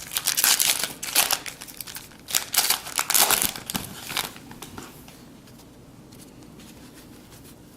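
Foil wrapper of a 2010 Bowman Jumbo baseball card pack crinkling and tearing as it is opened by hand, in bursts over the first four seconds or so, then dying down.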